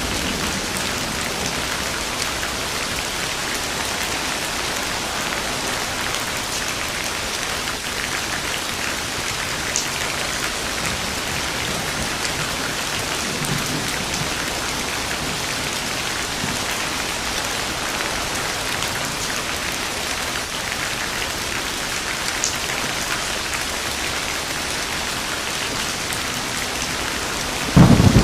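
Steady rain falling in a thunderstorm, an even hiss of drops on surfaces with a faint roll of thunder midway. Just before the end a louder thunderclap breaks in, low and booming.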